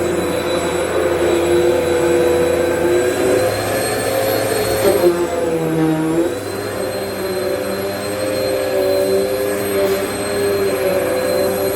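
Vacmaster UC0101 bagless upright vacuum running with a steady motor whine. About five seconds in, the pitch dips briefly and then recovers.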